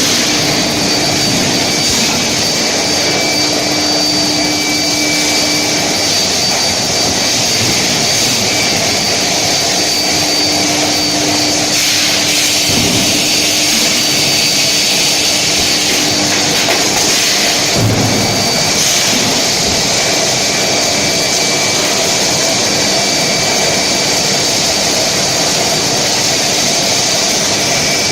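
Bar induction heating furnace line running: a steady, loud machine rush with a high whine and a lower hum that fade in and out, and a couple of brief knocks partway through.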